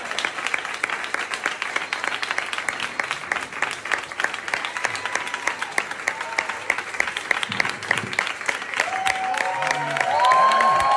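Audience applause, dense clapping that settles into an even rhythm of about four or five claps a second around the middle. Near the end, loud held calls from voices rise over the clapping.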